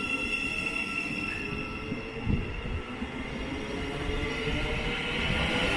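A Thameslink Class 700 electric multiple unit pulling out of the platform: a low rumble with a steady high whine, growing louder near the end.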